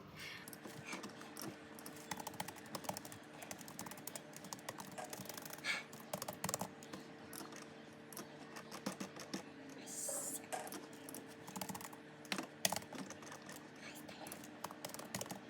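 Rapid, irregular small clicks, taps and rustles of album packaging being handled and opened, over a faint steady hum.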